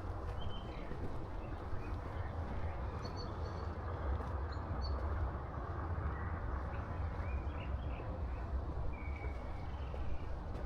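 Town street ambience heard while walking: a steady low rumble with a few short, faint chirps, the clearest about three to five seconds in.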